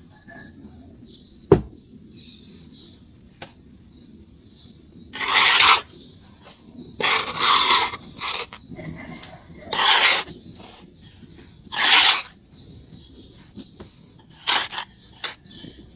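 Pure charcoal being rubbed and scraped by hand in four short gritty strokes, with a sharp click about a second and a half in and a few small clicks near the end.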